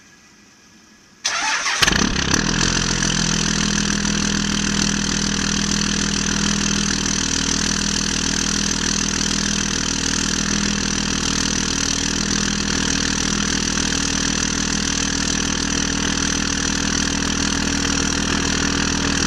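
2001 Dodge Ram's 5.9-litre Cummins inline-six turbo-diesel starting cold, with no block heater: a brief burst of cranking about a second in, the engine catching almost at once, then running at a steady idle.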